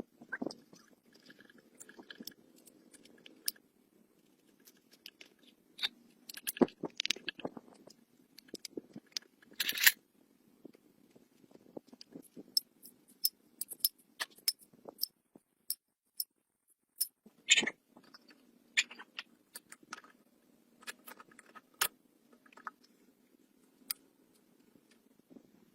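Scattered light clicks and taps at an irregular pace over a faint steady hum, with a few louder knocks, one about ten seconds in and one near seventeen seconds.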